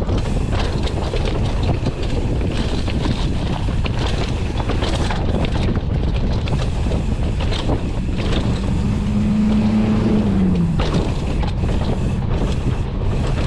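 Mountain bike running down a rough downhill trail: wind rushing over the action camera's microphone, with rattles and knocks from the bike over the ground. A brief low hum rises out of the noise about eight seconds in and drops away a few seconds later.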